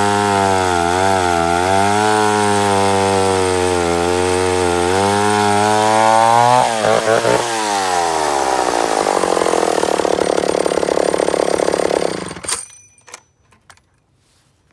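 Vintage McCulloch 1-50 two-stroke chainsaw running at high revs, its pitch dipping again and again as it is loaded, typical of bucking wood. About seven seconds in the throttle is released and the engine drops to a low idle, then it shuts off suddenly near the end, leaving a few faint clicks.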